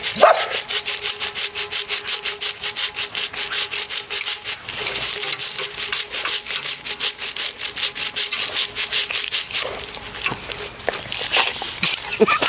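A dog's claws scraping rapidly at the ice sheet frozen over a plastic kiddie pool, a rasping scratch of about five strokes a second that stops about nine or ten seconds in.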